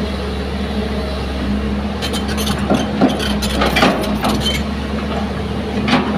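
Hitachi hydraulic crawler excavator's diesel engine running steadily while the bucket digs into sandy, stony soil. From about two seconds in to about halfway through, and again near the end, there are sharp clinks and knocks of stones scraping and striking the bucket.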